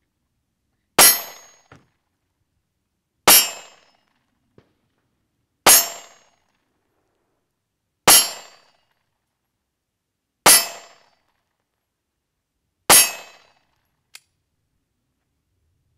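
Springfield Armory XD-S 9mm pistol fired slow and steady: six shots about two and a half seconds apart, each with a short ringing tail.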